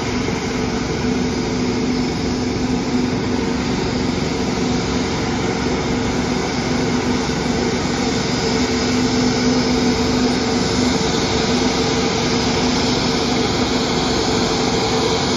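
Twin-engine jet airliner taxiing, its engines running with a steady rushing noise and a steady low hum, growing a little louder about halfway through as it comes closer.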